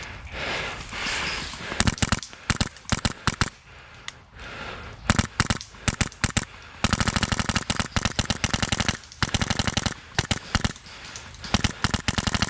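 Close airsoft rifle firing: short bursts of sharp cracks, then a long rapid full-auto string partway through, and more bursts near the end.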